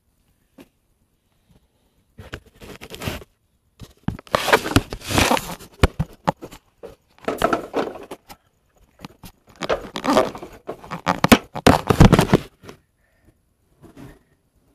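Handling noise: scraping, rubbing and knocking on the recording device as it is picked up and moved about, in four bursts after about two seconds of quiet.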